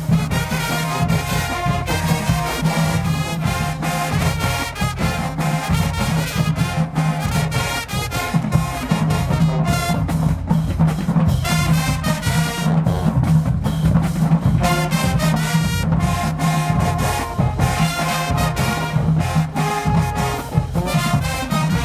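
High school marching band playing: the brass section carries the tune over a drumline's steady beat.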